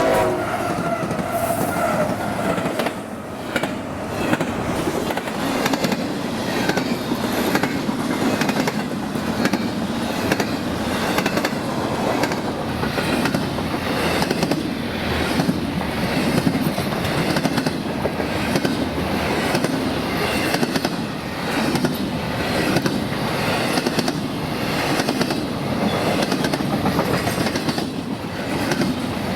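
A train's cars rolling past close by, the wheels clicking over rail joints in a steady, even rhythm. The tail of a multi-tone locomotive horn dies away just at the start.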